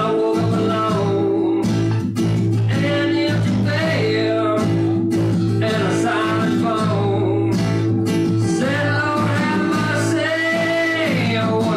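A man singing, accompanying himself on a strummed acoustic guitar. The sung phrases come with short breaks between them over ringing chords.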